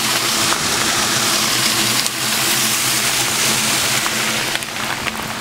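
Heavy rain falling on pavement, with water running into a street storm drain, heard as a loud steady hiss over a low steady hum. A few light handling knocks come near the end as the camera is swung.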